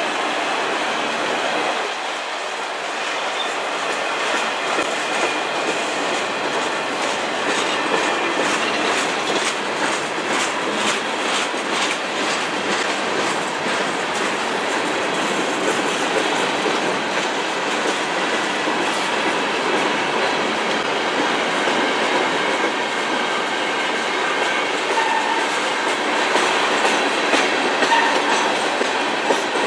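Freight train cars rolling past in a steady, loud clatter of steel wheels on rail, with a run of evenly spaced clicks from the wheels crossing rail joints in the first half.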